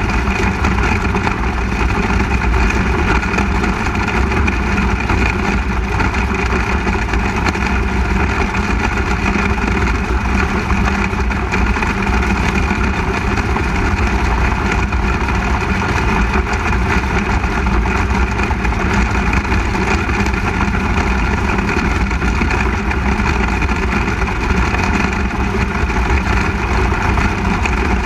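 Onboard sound of a 360 sprint car's V8 engine running, loud and close to the microphone, holding a steady note with no big rises or falls in pitch.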